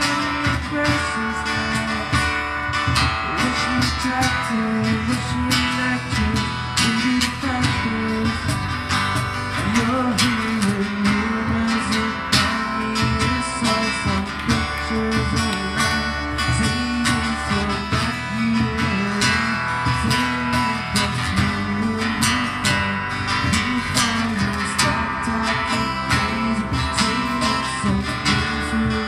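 Live acoustic band playing: strummed acoustic guitars over a steady cajon beat, with a male singer's voice.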